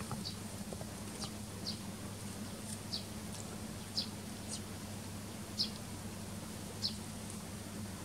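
Eurasian tree sparrow giving a series of short, high chirps, roughly one a second, each dropping slightly in pitch, over a steady low hum.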